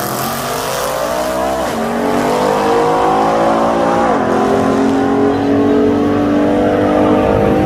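Two drag-racing cars launching and accelerating hard down the strip, their engines rising in pitch. The pitch drops back at upshifts about 1.7 s and 4 s in, then climbs again as they pull away.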